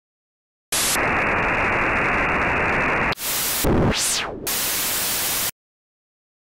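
TV-static sound effect for a glitchy channel logo ident: hiss that starts suddenly about a second in, drops out briefly, then a low thump and a fast electronic sweep up and back down, then more hiss that cuts off suddenly.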